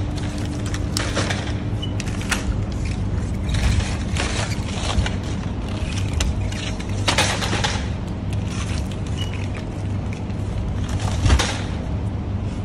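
Shrink-wrapped packs of plastic water bottles crinkling and knocking as they are handled and lifted out of a metal shopping cart, in irregular bursts, the loudest about seven and eleven seconds in, over a steady low hum.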